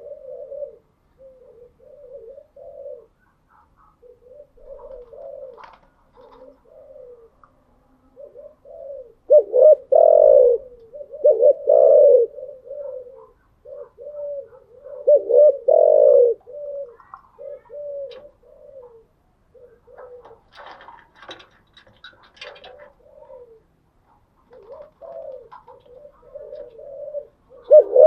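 Spotted dove cooing: a long run of low, throaty coo phrases, louder a third of the way in, midway and again at the end. Faint higher chirping sits in the background for a few seconds past the middle.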